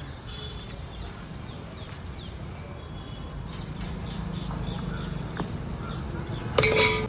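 Street background: a steady low rumble with many short, high chirps scattered through it, and one brief, loud, pitched blare about six and a half seconds in.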